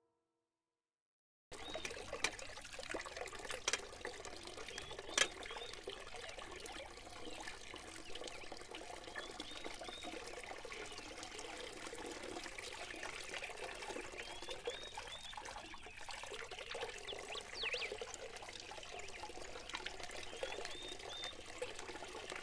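Small garden waterfall trickling and splashing steadily, starting after about a second and a half of silence, with a few faint high chirps and occasional clicks.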